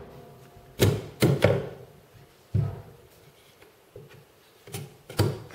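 Silicone-headed hammer tapping a wooden canvas stretcher frame to seat its corner joints: several sharp wooden knocks at irregular intervals, two close together about a second in and two more near the end.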